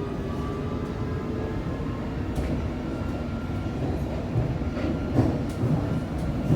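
London Underground train running, a steady low rumble with a faint whine that fades in the first second and a half, and a few sharp clanks near the end.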